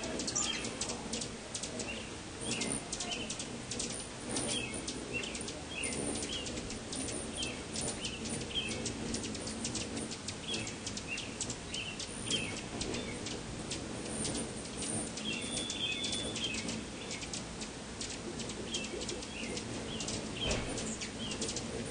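Several hummingbirds hovering and darting around a feeder: a steady buzzing hum of their wings, with rapid high chips and short twitters throughout and one longer high squeaky note about two-thirds of the way through.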